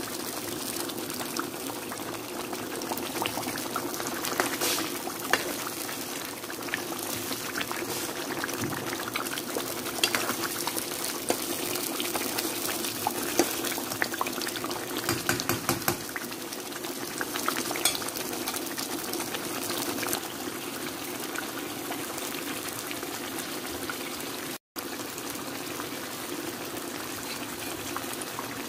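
Thick tomato fish stew bubbling as it simmers in a pan, a steady thick bubbling crackle, with occasional light clicks of a metal spoon as it is stirred gently.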